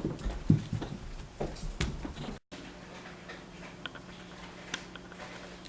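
A pet dog making a run of short vocal sounds for about two seconds. Then, after a cut, a quiet room with a steady low hum and a few faint clicks.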